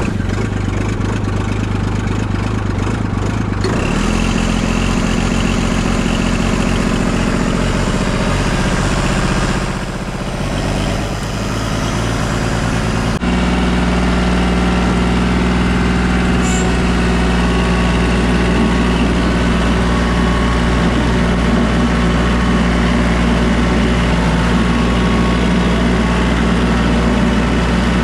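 Small diesel tractor engine running just after a cold start on glow plugs, settling into a steady idle. Its speed steps up about four seconds in, and its note changes abruptly about halfway through.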